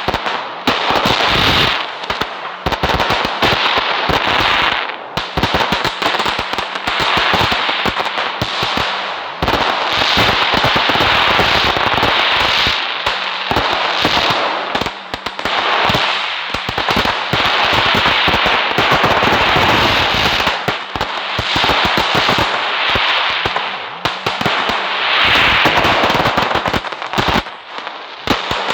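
Fireworks crackling: dense, rapid pops merging into a continuous crackle, in long runs with brief lulls between them.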